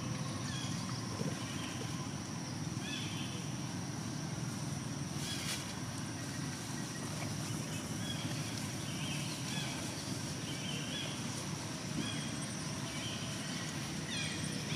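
Outdoor ambience: a steady low rumble with a steady high tone over it, and short high chirps every second or so.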